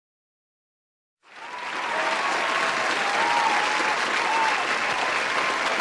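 Audience applause that fades in quickly about a second in and then holds steady.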